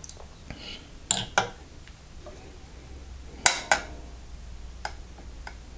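Beretta APX Centurion pistol parts, the polymer frame and the magazine, clacking as they are set down on a digital kitchen scale beside the slide. A few light knocks, the two sharpest about three and a half seconds in, a fraction of a second apart.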